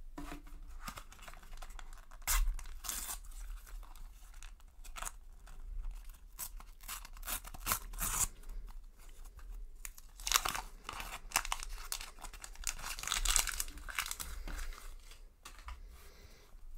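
A Panini sticker packet being torn open by hand, its wrapper crinkling in short, irregular rips and rustles, busiest in the second half.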